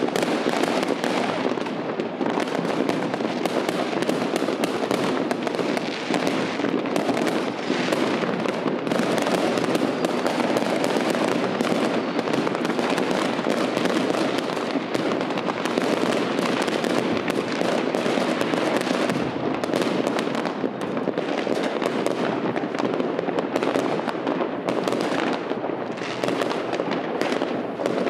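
Many fireworks going off at once: a dense, unbroken crackle of bangs and pops with no pauses.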